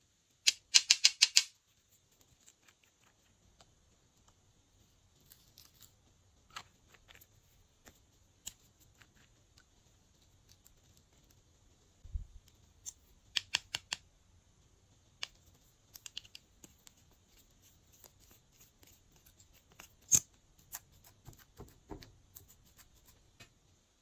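Small plastic makeup containers and lipstick tubes clicking and tapping as they are opened, handled and set down, with quick runs of clicks about a second in and again around thirteen seconds in, and scattered single taps between.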